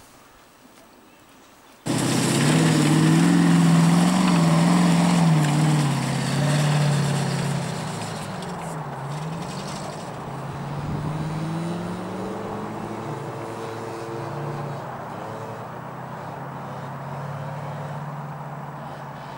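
Off-road 4x4's engine revving hard under load as it climbs a steep dirt bank, starting abruptly about two seconds in. The revs dip and pick up again around the middle, then the engine runs more steadily and a little quieter.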